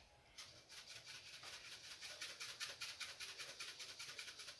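Black pepper shaken from a spice shaker over a pan of ground beef, a fast, steady rattling rasp of many shakes a second that starts about half a second in.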